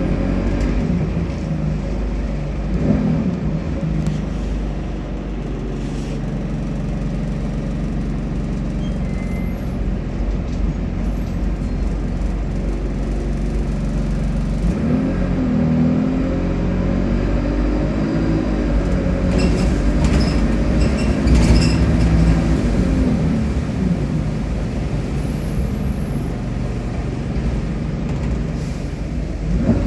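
Alexander Dennis Enviro200 single-deck bus heard from inside the passenger saloon while driving: a steady low rumble with the engine note rising and falling several times, and a few short rattles and clicks about twenty seconds in.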